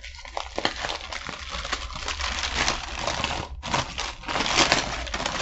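Paper sandwich wrapper crinkling and rustling as a wrap is unwrapped by hand, a dense run of crackles with sharper crinkles along the way.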